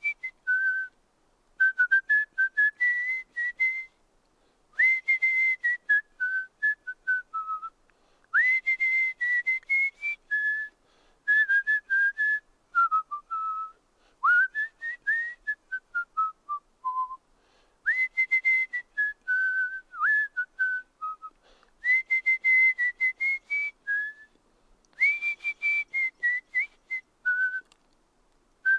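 A person whistling a string of short phrases, with brief pauses between them, a few notes each. Most phrases open with a quick upward slide to a held high note and then step down. The breath is audible as a light hiss under the whistle.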